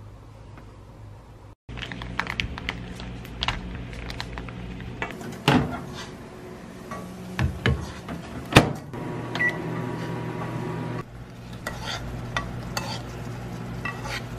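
Microwave oven running with a steady hum, over sharp knocks and clatter of bowls and utensils. In the last few seconds a spoon stirs in a pan on an induction hob.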